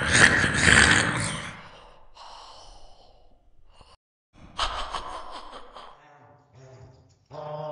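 Goblin creature vocal effect: two harsh, breathy hissing exhalations, the first loud at the start and the second about four and a half seconds in, followed by a faint low growl.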